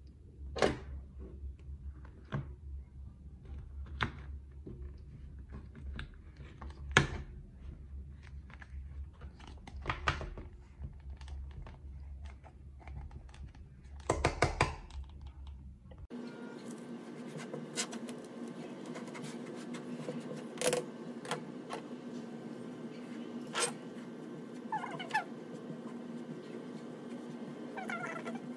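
Hands working kinetic sand: soft pressing and crumbling with scattered sharp taps and knocks, and a quick clatter of clicks from the plastic sand mould being handled and lifted off about halfway through. Over a steady low hum, a metal meat-tenderizer mallet then stamps the sand with a few sharp taps.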